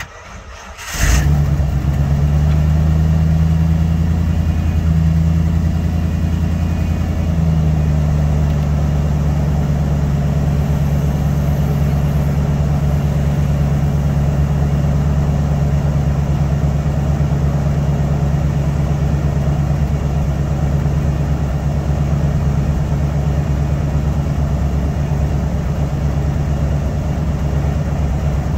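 A 1995 Ford F450 Super Duty's 7.5-litre gas V8 cranking briefly and catching on a cold start about a second in, then idling steadily with a deep, even note.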